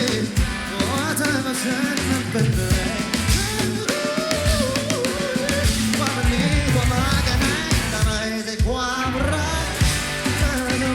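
Live pop-rock band performing: a singer carrying the melody over guitar, bass and a steady drum beat.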